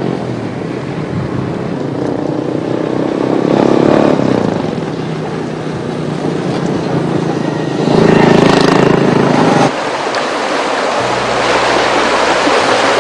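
Small motorbikes passing on a road, the engine-and-tyre noise swelling twice as they go by, the second swell cutting off suddenly.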